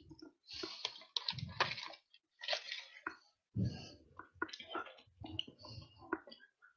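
Irregular rustling and bumping handling noise: short bursts of rubbing and light thuds, close to a headset microphone as the wearer moves about.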